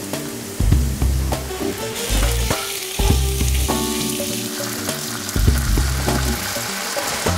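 Food sizzling in a hot pan on the stove, the hiss growing fuller about two seconds in, over background music with a stepping bass line.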